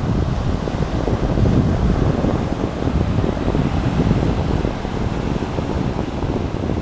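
Ocean surf rushing steadily, with wind buffeting the microphone and adding a heavy, uneven low rumble.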